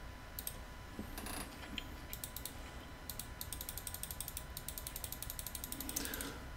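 Computer mouse scroll wheel clicking faintly in quick runs of light, even ratchet clicks as it is turned to zoom the chart.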